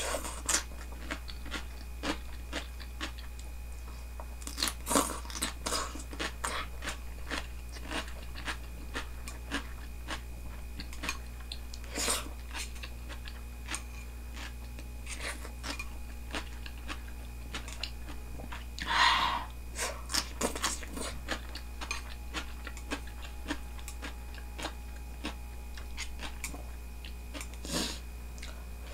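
A person chewing and crunching food at close range while eating tempura udon, in a run of short, irregular mouth clicks and bites. One longer, louder sound comes a little past halfway.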